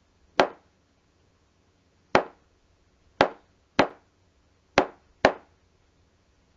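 AI-generated (AudioLDM2) sound of a hammer striking a wooden surface: six sharp knocks at uneven intervals, each dying away quickly.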